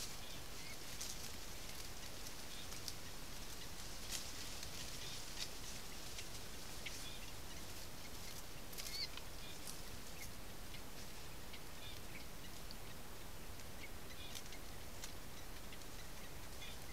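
Little bittern chicks begging at the nest as an adult feeds them: scattered short, high ticks and chirps over a steady hiss.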